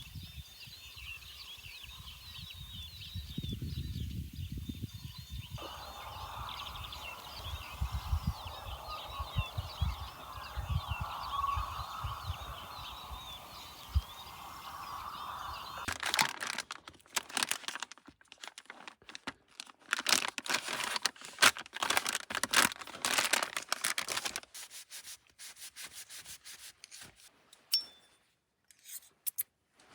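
Birds chirping over gusts of wind buffeting the microphone. About halfway this gives way to close, irregular crinkling and rustling of packaging being handled, the loudest part.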